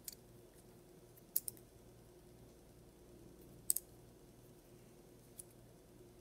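A few light, sharp clicks, two of them in quick pairs about a second and a half in and just before four seconds in (the loudest), over a faint steady hum.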